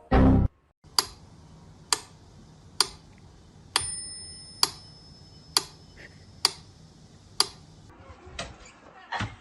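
A short loud burst, then eight sharp, regular ticks a little under a second apart, like a clock ticking.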